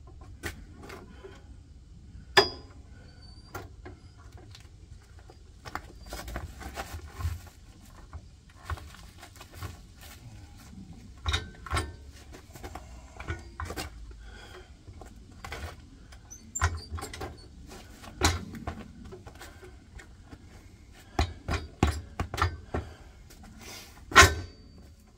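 Steel hitch parts being handled and fitted onto a compact tractor's three-point hitch and removable weight: scattered metal clanks, clinks and knocks, the two loudest about two seconds in and near the end.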